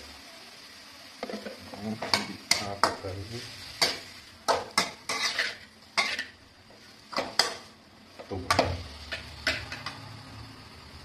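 Metal spatula scraping and clanking against a steel wok in irregular strokes as minced pork is stir-fried, over a faint steady sizzle.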